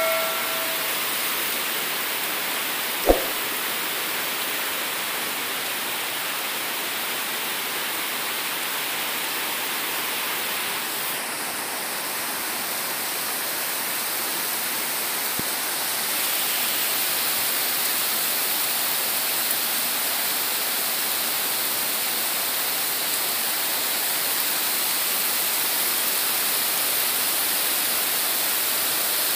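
Heavy monsoon rain pouring steadily onto trees and foliage, a dense even hiss. A single sharp knock stands out about three seconds in.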